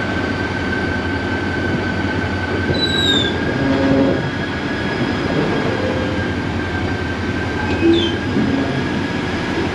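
KCR local passenger train running, heard on board: a steady rumble of wheels on the track under a thin, steady high whine. Short high squeals from the wheels come twice, about three and about eight seconds in.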